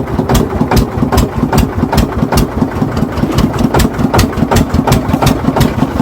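Fishing boat's engine running steadily, with an even beat of sharp knocks about two to three times a second.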